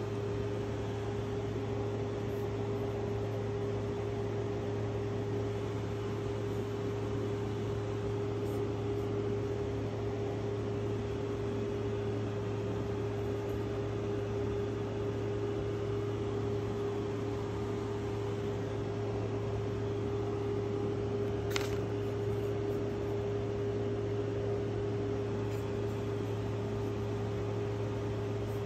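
Steady electrical-mechanical hum with one constant mid-pitched tone over a low drone and a faint hiss, with a single short click about three quarters of the way through.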